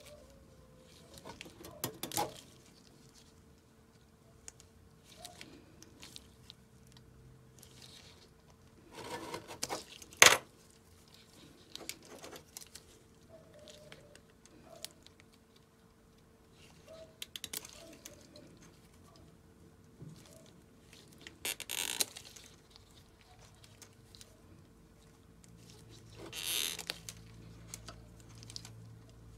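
Wire stripper biting and pulling insulation off a bundle of black PC power-supply wires, with the wires and gloved hands rustling. Irregular short clicks and scrapes, the loudest a sharp snap about ten seconds in.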